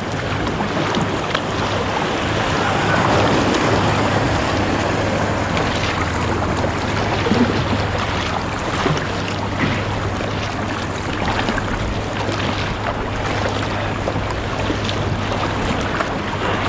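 Sea water washing and splashing around an inflatable kayak as it is paddled, with wind on the microphone.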